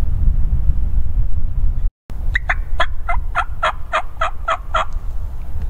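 Steady wind rumbling on the microphone; about two seconds in, after a brief dropout, a run of about ten evenly spaced turkey yelps, roughly four a second, each note falling in pitch.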